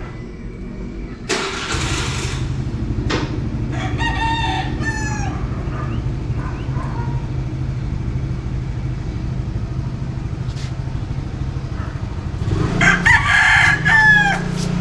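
A rooster crowing, once about four seconds in and again, louder, near the end, over the steady low hum of an engine running that sets in after a short burst of noise about a second and a half in.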